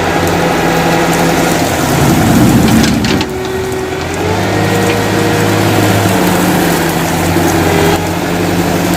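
Heavy diesel vehicle engine running, with a brief surge about two seconds in; a little after four seconds it settles to a different steady pitch and holds there.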